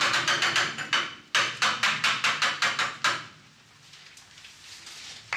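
A fast, even run of sharp knocks, about six a second, in two runs with a short break about a second in. They stop after about three seconds.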